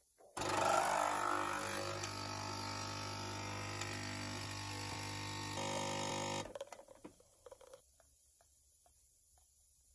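Coffee machine's pump buzzing steadily as it brews coffee into a mug. The note shifts slightly near the end before the pump cuts off about six seconds in, followed by a few faint ticks.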